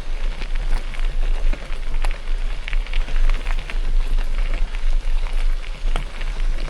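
Mountain bike rolling along a forest road: tyres crackling over the road surface with many small clicks and rattles, over a steady low rumble of wind on the microphone.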